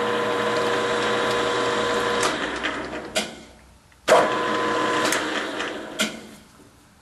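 Grizzly 4003 metal lathe running steadily under power, then switched off about two seconds in and spinning down, with a click. About four seconds in it starts again with a sharp clack, run in reverse to bring the carriage back after a threading pass, then winds down again with another click.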